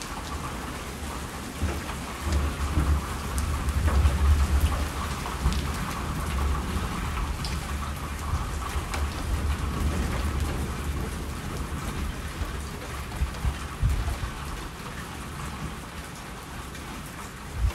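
Steady rain falling, with a long, low roll of thunder that builds about two seconds in, is loudest a few seconds later and dies away over the following several seconds.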